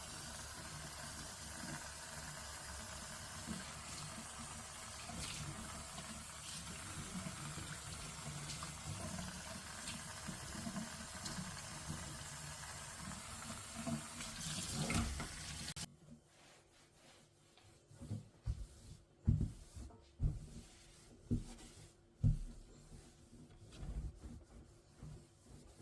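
Tap water running steadily into a sink, shut off suddenly about sixteen seconds in. After that come several short, soft thuds and knocks.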